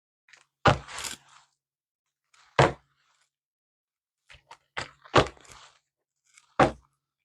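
A tarot deck being shuffled and handled by hand: about five sharp knocks, two of them close together near the end, with short rustles and scrapes of the cards between.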